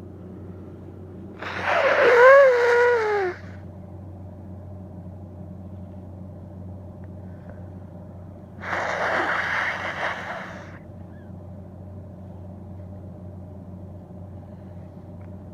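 A woman sneezing twice. The first, loud sneeze has a voiced cry whose pitch slides down, about a second and a half in. The second, about seven seconds later, is breathier, without a clear pitch.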